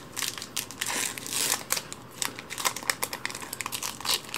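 Crinkling of a foil Magic: The Gathering booster-pack wrapper being handled, a run of irregular crackles.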